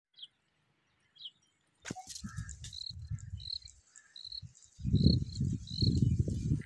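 Open-field ambience: low, gusty rumbles of wind on the microphone, loudest in the second half, with a short high chirp repeated about every 0.7 seconds over them.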